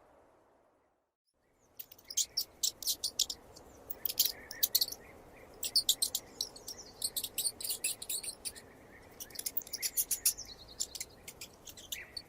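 Mouse squeaking: many short, high-pitched squeaks in quick clusters, starting about two seconds in, over a faint steady hiss.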